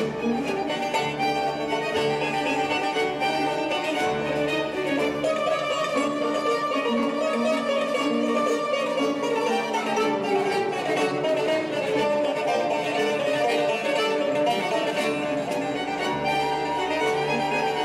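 Small chamber ensemble of violins, cello and piano with a plucked string instrument playing an opera overture, the bowed strings leading with sustained melodic lines.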